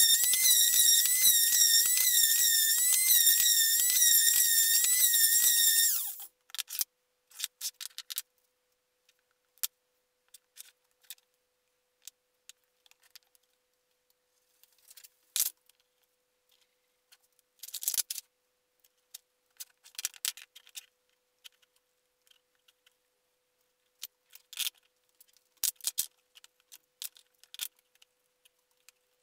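Random orbital sander running on an MDF block with a high, wavering whine, switched off about six seconds in. After it, scattered light knocks and clicks of wooden pieces being handled and bar clamps being set.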